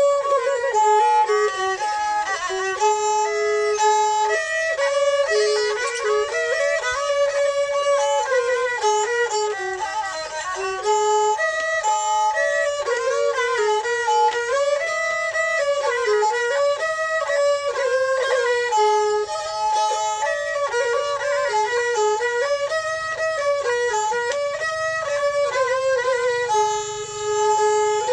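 Thai saw fiddles bowing a mahori melody together, in old-style kantrum: a sliding, ornamented tune with no drums.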